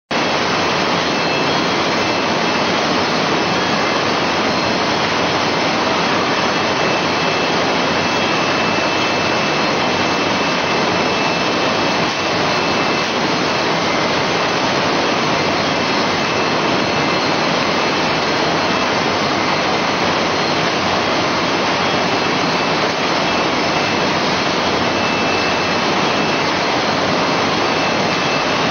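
Chicken feet processing line running: a steady, loud mechanical roar from the rotating stainless-steel drum machines and conveyors, with a faint high whine above it.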